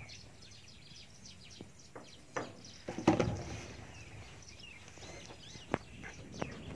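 Outdoor ambience with faint bird calls, broken by a few short sharp knocks and ticks; the loudest knock comes about three seconds in.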